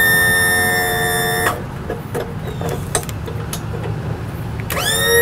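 Electric tilt-and-trim pump motor on a Yamaha 90 outboard whining steadily as the trim is cycled to work air out after a fluid refill. It stops abruptly about a second and a half in, and a few faint clicks follow. It starts again near the end, its pitch rising quickly as it spins up.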